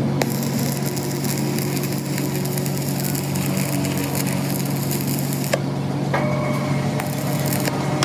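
Stick welding on a steel tie rod end: the electrode arc crackles and sizzles steadily, then stops about five and a half seconds in. A steady low hum runs underneath.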